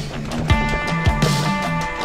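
Background rock music with a steady drum beat and bass line; a sustained chord comes in about half a second in.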